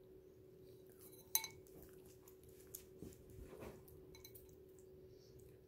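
A spoon clinking against a bowl of oatmeal while eating: one sharp, ringing clink just over a second in, then a few lighter taps.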